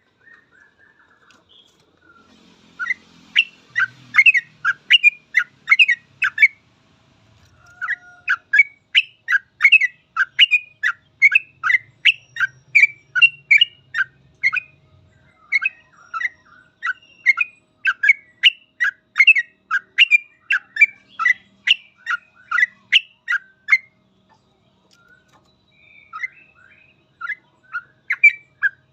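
Yellow-vented bulbul (trucukan) singing in rapid runs of loud, sharp chattering notes, about two a second, in the continuous 'ropel' style. The runs break off briefly near the start, about a quarter of the way in and again about four-fifths of the way through.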